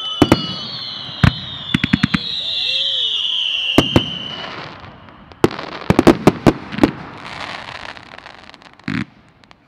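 Fireworks display: several shrill whistles falling slowly in pitch over the first four seconds or so, amid sharp bangs of bursting shells. A quick string of bangs comes about six seconds in, followed by crackling, then a single dull thump near the end.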